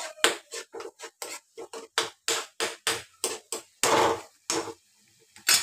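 A metal spoon stirring and scraping through a thick masala paste in a black kadhai, in quick strokes about three a second, with one longer scrape about four seconds in and a short pause near the end.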